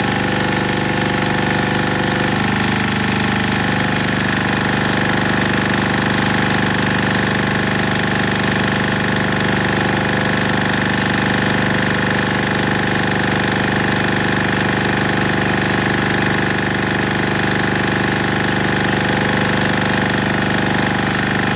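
Denyo single-cylinder diesel generator running steadily under a load of electric heaters of about 1.1 to 1.4 kW, on ordinary diesel fuel.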